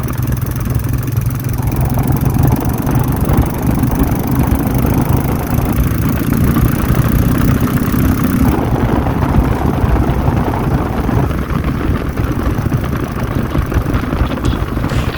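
Royal Enfield Classic 350 Reborn's 349 cc single-cylinder engine running under way through an aftermarket Indori 3K silencer and bend pipe. Its note shifts a few times as the throttle and gears change.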